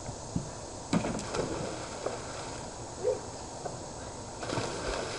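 A few sharp knocks, then pool water splashing from about four and a half seconds in as a swimmer plunges in.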